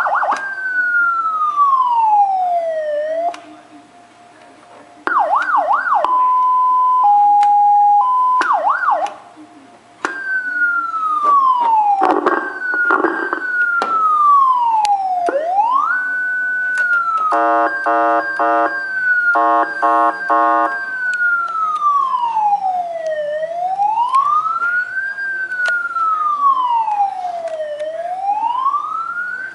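Electronic police siren running through its tones: a slow wail falling in pitch, a short fast yelp, a two-tone hi-lo, and a pulsing horn blast about two-thirds of the way in. It then settles into a slow wail rising and falling every four to five seconds. It drops out briefly twice in the first ten seconds.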